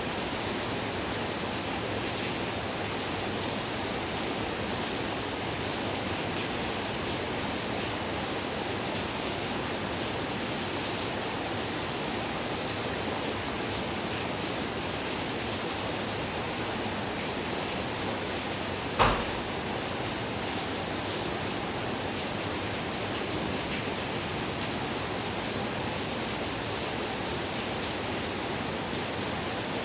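Heavy rain falling steadily, an even hiss. One short sharp knock about two-thirds of the way through.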